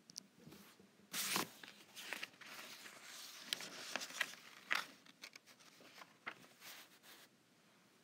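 Rustling and handling noise with a few sharp clicks, starting about a second in and dying away near the end.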